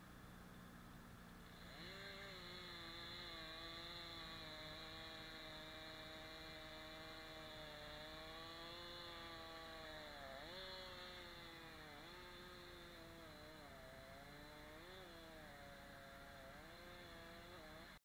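Faint chainsaw revving up about two seconds in and running on at high speed. Its pitch sags and recovers several times as it loads up cutting into the pine trunk.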